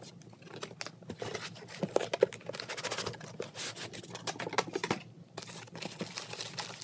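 Packaging being handled as a car stereo head unit in a plastic bag and white foam end caps is lifted out of a cardboard box: irregular rustling, scraping and light taps. The footage is sped up.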